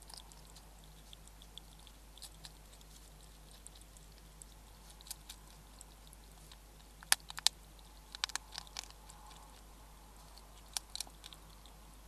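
European hedgehog eating from a food bowl: scattered crisp crunches and clicks of chewing, with a cluster of loud, sharp crunches about seven seconds in, more just after, and a few near the end.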